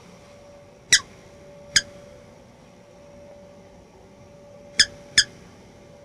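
Bird sound effects for a cartoon: four short, high chirps, a pair about a second apart and then a quick pair near the end, played back at normal speed over a faint steady hum.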